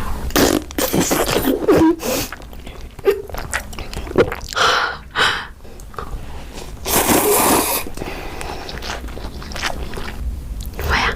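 A person eating close to the microphone: irregular chewing, crunching and scraping noises, with a longer noisy rustle about seven seconds in.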